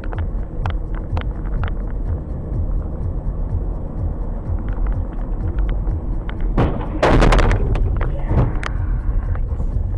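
Car on the road, its low road and engine rumble steady with scattered clicks. About seven seconds in comes a loud, brief crash-like impact, and a smaller knock follows a second later.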